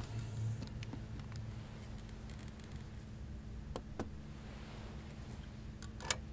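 Quiet room with a faint steady hum, broken by a few light clicks; the sharpest, about six seconds in, comes as a hand takes hold of a small metal box on a glass table.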